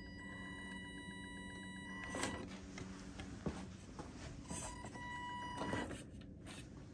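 Electric drive motor and gears of an RC rock crawler whining as it creeps over rocks. The whine starts and stops with the throttle, and a few sharp knocks come from the tyres and chassis striking the stone.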